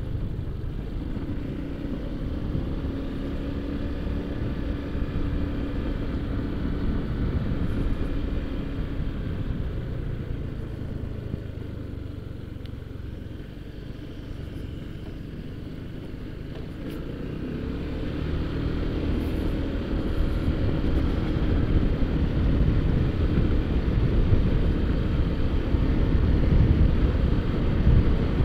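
Honda ADV150 scooter's single-cylinder engine running on the move, with a low rumble of engine and road noise. It eases off and goes quieter around the middle, then picks up speed and gets louder toward the end.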